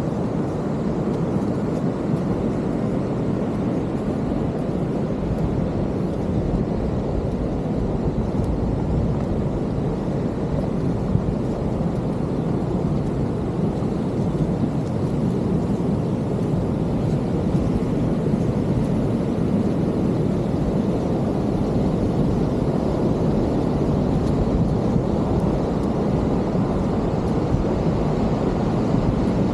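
Steady low roar of large ocean surf breaking on the beach.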